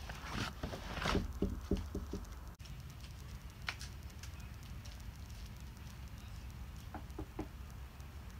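Light footsteps and short scuffs and taps over a steady low outdoor rumble, with a brief dropout at an edit about a third of the way in.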